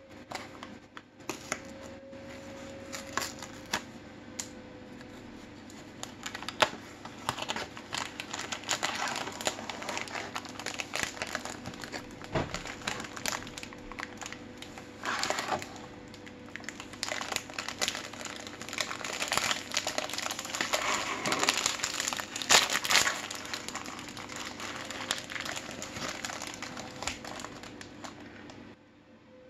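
Jaffa Cakes packaging being handled and opened by hand: the cardboard carton scraping and clicking, then the clear plastic biscuit wrapper crinkling and rustling, with sharp crackles throughout. The crinkling is loudest in the latter half.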